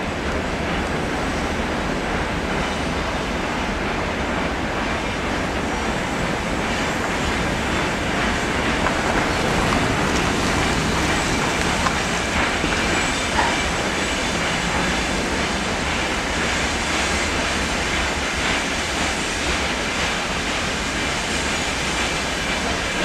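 Freight train hauled by a VL10U electric locomotive running past on the track: a steady, loud rumble and clatter of wheels on rails.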